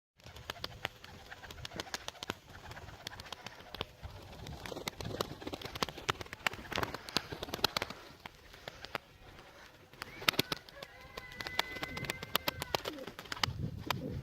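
Turkish tumbler pigeons cooing, over frequent sharp clicks and taps. About ten seconds in, a thin steady tone is held for roughly three seconds.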